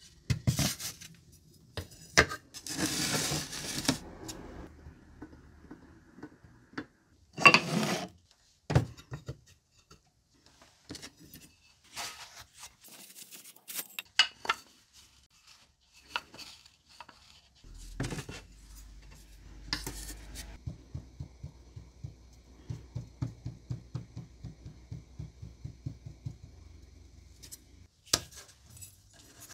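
Carbon-steel sashimi knife being worked by hand: scattered metal clicks and scrapes, two longer rasping strokes, then a run of quick even strokes about three a second as the blade is stropped.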